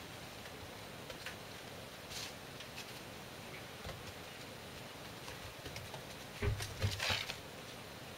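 A cat batting a toy mouse on a springy wire fixed in a small carpet-covered base: scattered light taps and patters of paws, with a cluster of louder thumps and rustles about six and a half seconds in.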